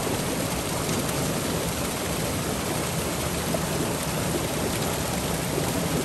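Steady rush of a small river's flowing water, an even, unbroken noise.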